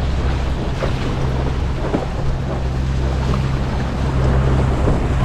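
Wind buffeting the microphone over the rushing and splashing of choppy sea water against a windsurf board under sail. It gets a little louder about four seconds in.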